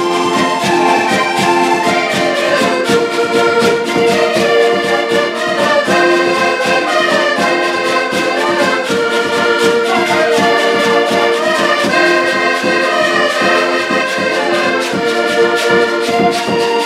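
Several diatonic button accordions playing a lively folk tune together, over a steady beat from a large rope-tensioned bass drum.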